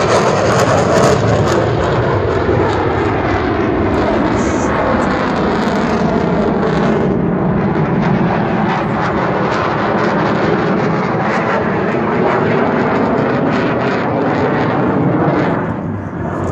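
Military fighter jet flying past, a loud continuous jet roar whose pitch slides slowly as it passes, dipping briefly near the end.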